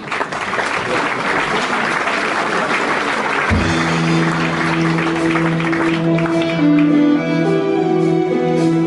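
Audience applauding, the clapping dying away after about six seconds, while music with long held notes comes in about three and a half seconds in.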